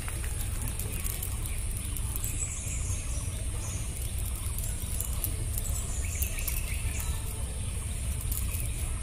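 Rural outdoor ambience: a steady low rumble and a steady high-pitched hiss, with scattered faint ticks and a few short high chirps.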